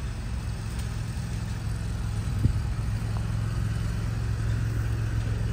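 Steady low rumble of motor traffic, with a single brief knock about halfway through.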